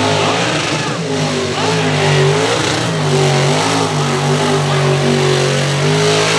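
Square-body Chevy mud truck's engine revving hard at full throttle. Its pitch falls and climbs several times as it jumps a hill and ploughs through the mud hole, then holds high near the end.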